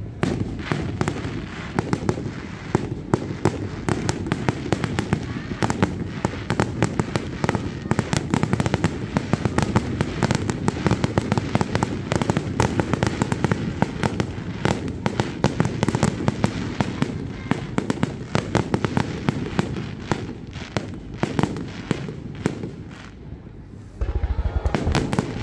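Aerial fireworks going off in a dense, rapid barrage: a near-continuous run of sharp cracks and bangs over a low rumble of booms. The barrage thins out a few seconds before the end, then a fresh cluster of heavier booms breaks out.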